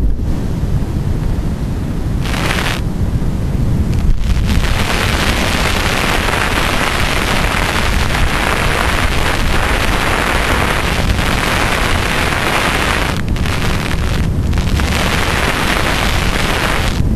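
Wind rushing over the camera microphone during a tandem parachute descent, a loud steady rush that drops away briefly a few times as the airflow over the microphone shifts.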